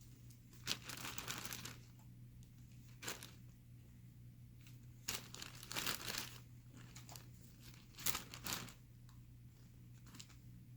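Plastic bag crinkling in irregular short bursts as yarn is pushed into it and the bag is handled.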